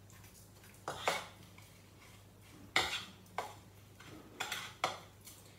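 Spoon clinking and scraping against a bowl in a handful of short, irregular strokes as raw chicken pieces are mixed with pepper, salt and turmeric.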